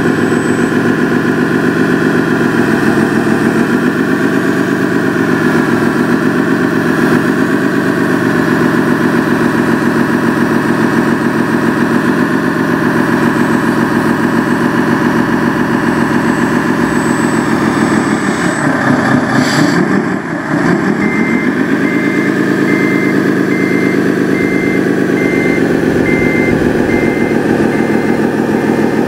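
RC model bulldozer running as it pushes dirt: a steady mechanical drone whose pitch wavers up and down, dipping briefly and recovering about two-thirds of the way through.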